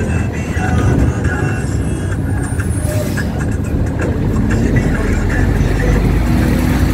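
Motor vehicle engine running with a steady low rumble amid road traffic, its pitch beginning to rise near the end as it accelerates.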